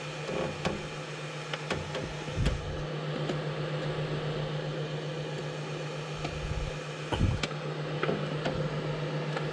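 Steady hum of the Flashforge Guider 2S 3D printer's fan running while its platform is held at 100 °C. A few low thumps, the loudest about seven seconds in, come from the build tape sheet being shifted and pressed on the plate.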